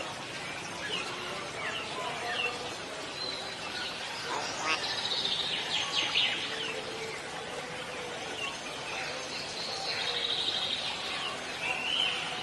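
Birds chirping and whistling: scattered short calls, with runs of rapid repeated notes about halfway through and again near the end.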